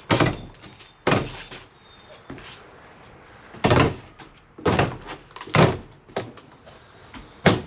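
Screen mesh being yanked off a wooden porch frame, its staples pulling loose: about six short, sharp rips and thuds spread a second or so apart.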